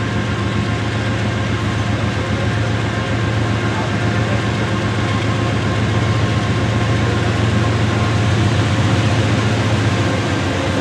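Diesel locomotive engine running with a steady low drone.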